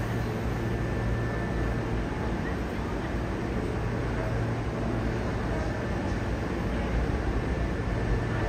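Steady low hum and even rumbling noise of a railway station platform, with a faint thin whine, from standing trains and station equipment.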